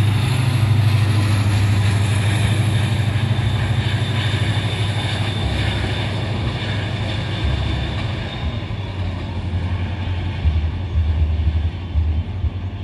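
A locomotive-hauled Mugunghwa-ho passenger train passing on the line below, with a steady low rumble and rolling noise. The sound slowly fades from about two-thirds of the way in as the train runs away into the distance.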